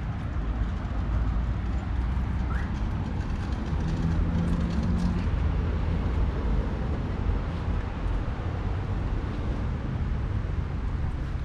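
Outdoor city ambience dominated by a steady low rumble of road traffic. A short low drone, like a passing engine, stands out about four to five seconds in.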